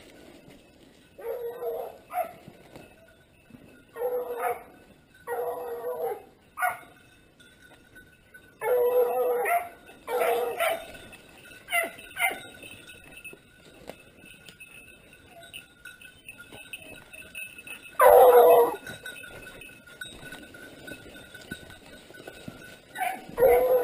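Hunting hounds baying in short bouts of barks, several in quick succession over the first twelve seconds, the loudest bout about eighteen seconds in and another just before the end.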